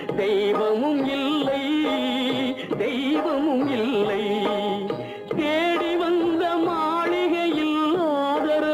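Music from a 1960s Tamil film song: a melody line with sliding, wavering Carnatic-style ornaments over accompaniment.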